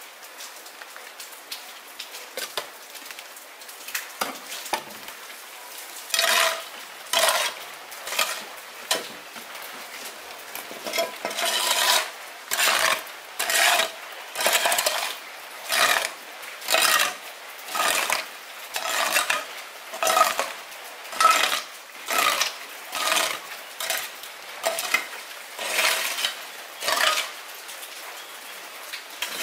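A metal utensil scraping and stirring in a metal pot, in regular strokes about once a second from about six seconds in, with fainter scattered scrapes before that.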